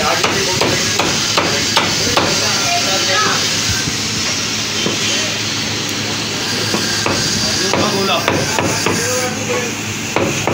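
Meat cleaver chopping mutton on a wooden log chopping block: sharp chops about two or three a second for the first few seconds, sparser in the middle, then another run of chops near the end.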